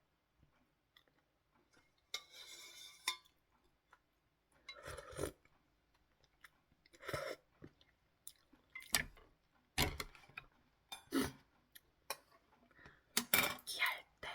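A person eating ramen close to the microphone: chewing and slurping noodles in short separate bursts every second or two, with a longer slurp about two seconds in and a quicker run of them near the end.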